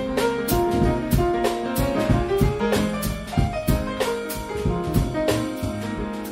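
Instrumental jazz passage from a piano trio: piano, double bass and drum kit play together, with the cymbals keeping a steady beat.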